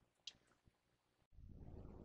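Near silence: faint room tone, with one small click about a quarter second in and a low background hum starting about two-thirds of the way through.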